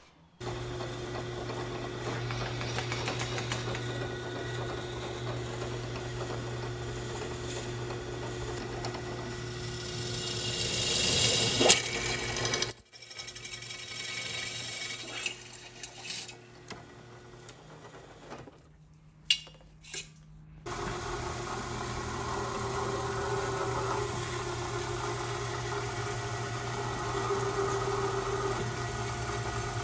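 A vertical milling machine runs steadily while a drill bit cuts through steel square tubing, growing louder up to a sharp click near the middle. After a quieter stretch with two short knocks, a drill press runs steadily, spinning a countersink that deburrs the drilled holes.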